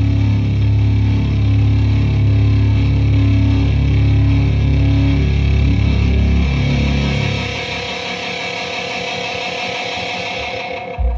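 Live rock band with distorted electric guitar, ending a song: the full band with heavy bass plays on, then about seven seconds in the low end drops out and held guitar notes ring on until they cut off just before the end.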